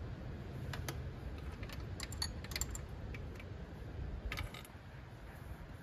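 Irregular metallic clicks and clinks of a wrench working on a fan clutch's 12 mm fastener as it is loosened, with a quick run of clicks about four seconds in.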